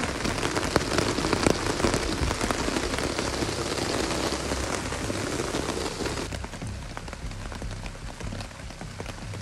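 Steady rain falling on the forest, a dense hiss of drops that becomes a little quieter about six seconds in.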